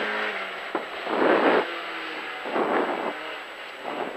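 Opel Kadett GT/E rally car's four-cylinder engine heard from inside the cabin, its note rising and falling as the car takes a tight right hairpin, with two louder surges of revs about a second and a half in and again near three seconds.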